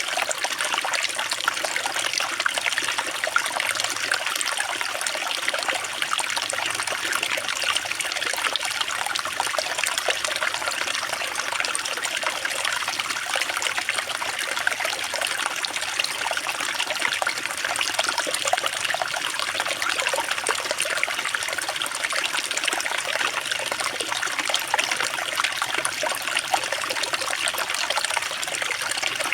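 Water running and trickling steadily with a fine splashing patter, unchanging throughout.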